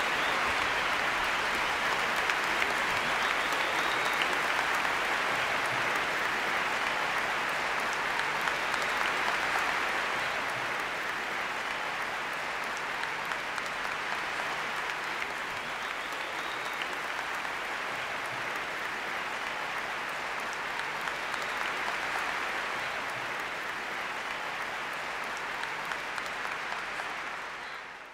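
Large audience applauding steadily, a dense even clatter of many hands that eases slowly and then fades out quickly at the very end.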